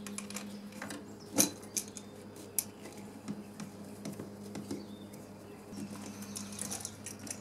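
Small clicks and scrapes of a screwdriver and bare copper ground wire against a receptacle's green ground screw and metal strap as the ground is fastened, with a sharper click about a second and a half in. A steady low hum runs underneath.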